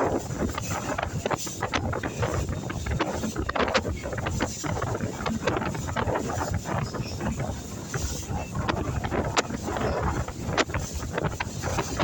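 Strong wind buffeting a phone microphone aboard a moving tour boat, with irregular gusting bumps over the boat's steady running noise.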